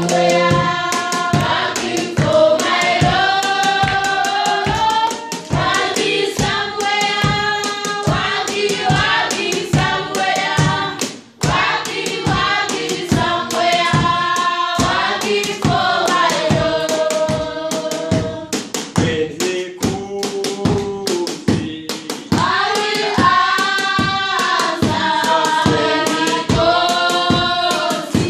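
A small group singing a worship song together, with steady rhythmic hand clapping on the beat, about two to three claps a second. The singing briefly drops out around the middle.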